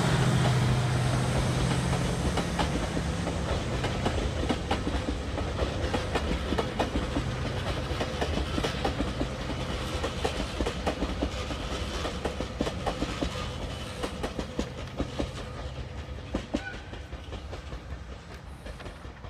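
The JR Kyushu Seven Stars cruise train pulls away and recedes, its wheels clicking over the rail joints. A low steady hum dies away in the first few seconds, and the whole sound fades steadily as the train draws off.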